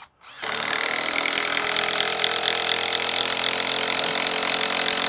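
Electric drill-driver running steadily at full speed for about five seconds, starting about half a second in, as it drives a screw into timber.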